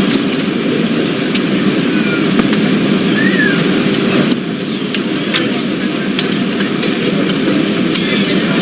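Steady rushing hum of an airliner's ventilation or ground power, with indistinct passenger chatter underneath and scattered small clicks and knocks, as passengers board.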